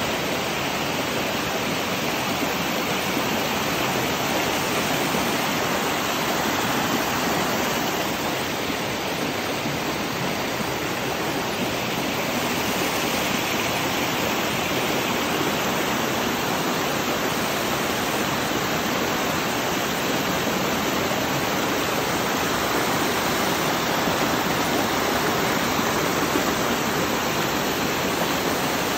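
Water of a shallow rocky stream rushing over boulders and a small cascade: a steady, even rush with no breaks.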